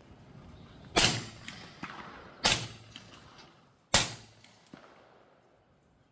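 Suppressed .300 Blackout rifle firing three shots about a second and a half apart, each a sharp report that trails off quickly, with a fainter click following each shot by about half a second.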